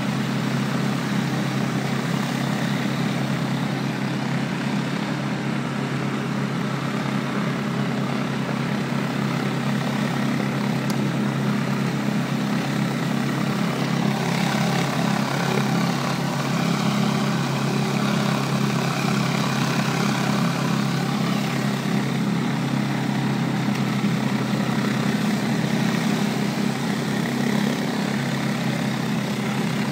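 A pressure washer's engine running steadily under load, with the hiss of high-pressure water from a round surface cleaner spraying across brick pavers. The hiss gets a little louder about halfway through.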